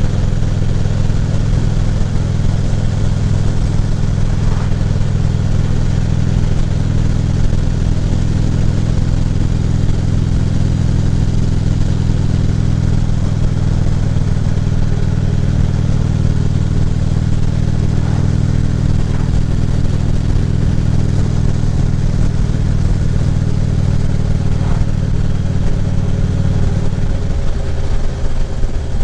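2014 Harley-Davidson Ultra Classic Limited's V-twin engine running steadily while riding, with wind and road noise. Near the end the engine note drops lower as the bike slows.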